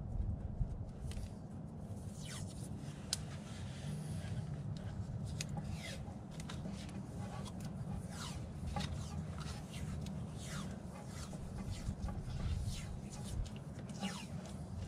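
Electrical tape being pulled off the roll and wrapped around a disconnected battery ground cable's ring terminal: a string of short rasping pulls over a steady low hum.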